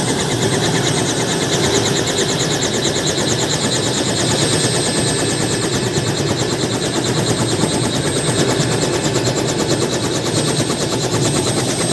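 Light helicopter running on the ground close by, a loud, steady engine-and-rotor sound with a rapid, even pulsing.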